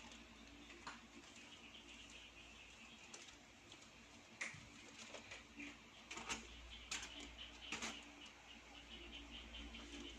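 Faint scattered scratches and light taps of kittens moving and scuffling about, a few of them louder between about four and eight seconds in, over a faint steady low hum.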